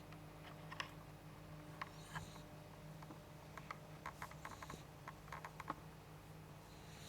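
A two-month-old pet snoring softly: a faint breathy hiss comes about every two and a half seconds. Scattered faint clicks run through it, thickest about four to six seconds in, over a low steady hum.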